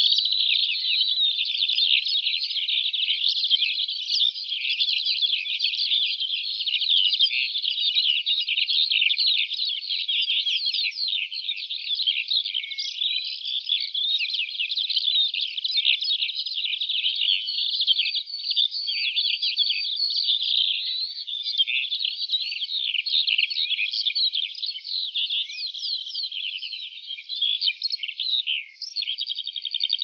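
Dense chorus of many small songbirds chirping and twittering together: a continuous crowd of quick, high, sweeping notes.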